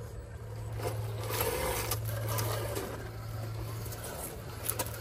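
A 1/10-scale electric RC crawler working over a dirt slope: a steady low hum from its motor and gear transmission, with its tyres scraping and crunching over dirt and dry leaves, strongest about one to three seconds in, and a couple of sharp clicks near the end.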